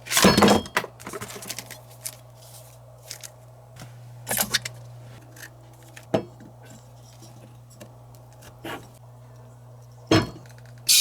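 Scattered clicks, knocks and light clinks of objects being handled, over a steady low hum. A louder rustling burst comes at the very start, a short cluster about four seconds in, and a sharp click just after ten seconds.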